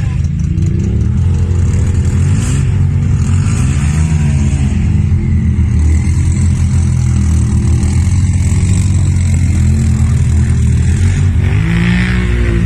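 Off-road vehicle engine revving hard, its pitch rising and falling repeatedly.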